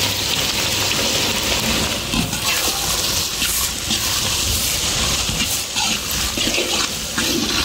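Sliced onions frying in hot oil with mustard seeds, fennel and chana dal in a large wok, a steady sizzle as they are stirred with a metal slotted ladle.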